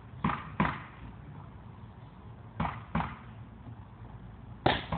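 A bowling ball struck repeatedly with a tool swung overhead: sharp knocks that come in pairs, about every two seconds, three times.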